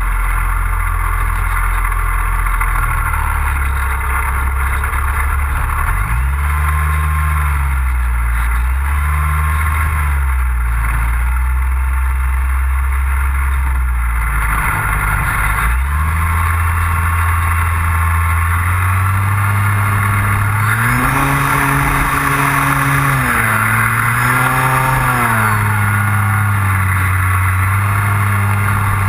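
Engine of a radio-controlled F4U Corsair model airplane in flight, its pitch rising and falling several times as the throttle changes and the plane passes.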